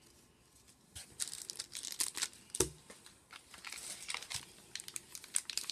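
Plastic packaging crinkling and rustling in bursts as craft supplies are handled inside a cardboard shipping box, starting about a second in, with a single knock about two and a half seconds in.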